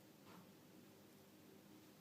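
Near silence: faint room tone with a low steady hum, and one brief faint sound about a quarter of a second in.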